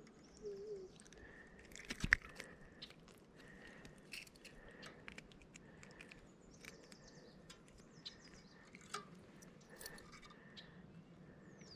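Faint outdoor ambience: scattered small clicks and knocks, the sharpest about two seconds in, with short high bird chirps coming and going.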